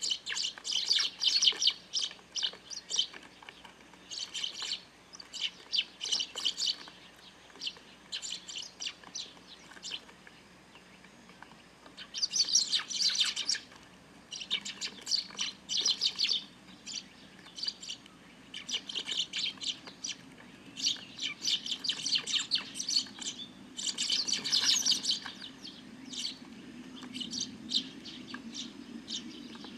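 A flock of Eurasian tree sparrows chirping noisily, with rapid clusters of high chirps coming in bursts a few seconds long and quieter lulls in between.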